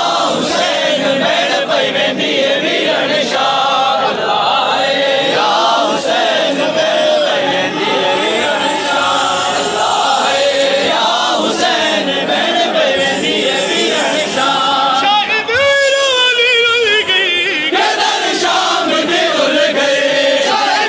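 Large crowd of men chanting a Shia noha (lament) in unison. About three-quarters of the way through, one wavering voice rises above the crowd for a couple of seconds.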